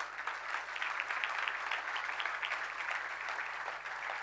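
Audience applauding, many hands clapping together, steady throughout.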